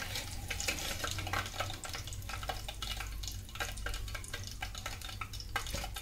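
Hot oil sizzling and crackling in a stainless steel electric kettle as chicken lollipop pieces deep-fry, with many irregular small pops, while a metal slotted spoon stirs in the oil.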